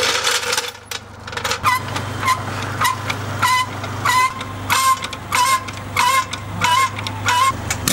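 Nordberg hydraulic trolley jack being pumped by its handle, about eleven even strokes a little under two a second, each a click followed by a short squeak, starting about a second and a half in. A steady low hum runs underneath.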